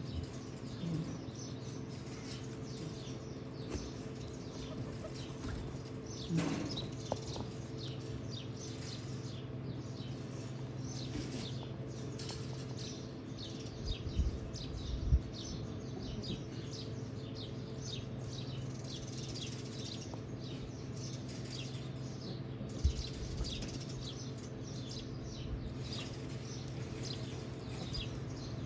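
Many small birds chirping busily and continuously over a steady low hum, with a few dull low thumps about halfway through and again later.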